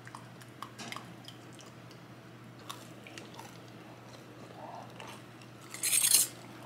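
Thick sauce being ladled into a quart mason jar packed with raw chicken thighs: soft wet pouring and squishing with small clicks of the ladle against the glass, then a brief loud scrape of the ladle about six seconds in.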